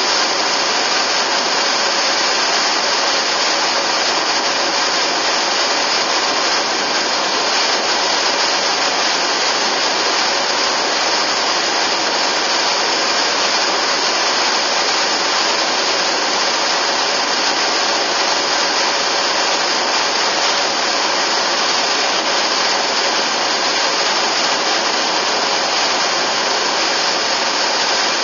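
Steady road and wind noise inside a moving car, an even hiss that holds at the same level throughout.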